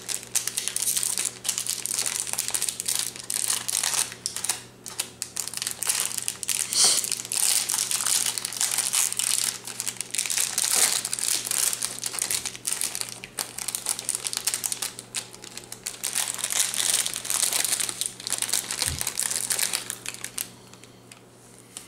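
Plastic packaging crinkling and crackling in the hands as a crankbait lure is unwrapped, a dense run of small crackles that dies away near the end.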